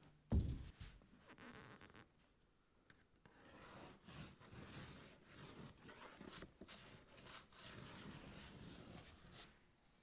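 A metal drywall T-square is set down on rigid foam insulation board with a single knock, then a pencil scratches along its edge, marking a cut line on the foam, with the square's blade rubbing on the board.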